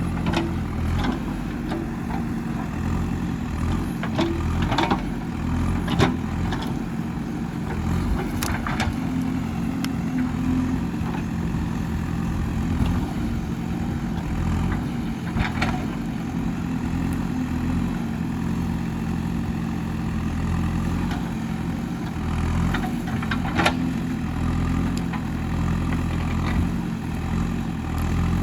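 Digging machine's diesel engine running steadily, with occasional sharp clanks and knocks, about half a dozen spread through.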